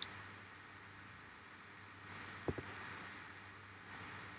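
A few faint clicks from a computer mouse and keyboard over low microphone hiss: a cluster about two seconds in and another near the end.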